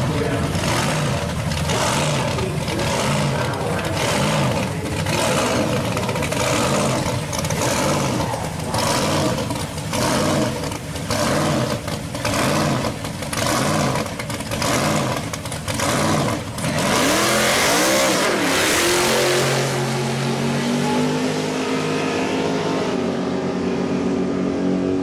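Supercharged V8 of a 1969 Camaro drag car idling with a lopey pulse, about one and a half beats a second, alongside a second car at the start line. About seventeen seconds in, both launch: the engines rev hard with a rising pitch, then run on, fading as the cars pull away down the strip.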